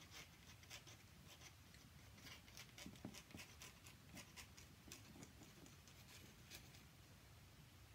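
Faint scratching of a dip pen nib on paper, in short strokes that come irregularly about once or twice a second, over a low steady room hum.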